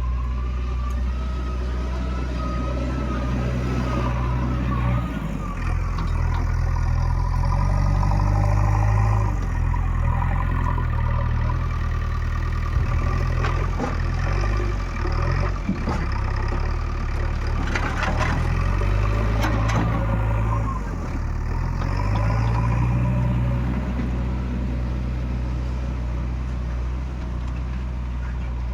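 Diesel engine of a JCB 3DX backhoe loader running under load, revving up twice: once a few seconds in and again about two-thirds of the way through. Short clanks and rattles come in the middle.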